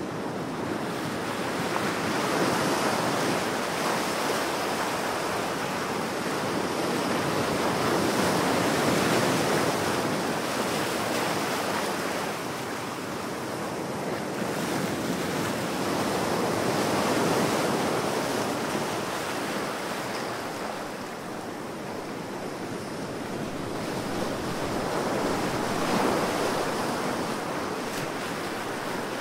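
Ocean surf: a continuous wash of breaking waves that swells and eases, with four louder surges several seconds apart.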